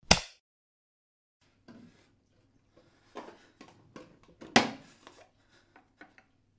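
A single sharp bang at the very start. Then, over a faint low hum, small clicks, taps and rubs of toiletry containers being handled at a bathroom sink, the loudest click about four and a half seconds in.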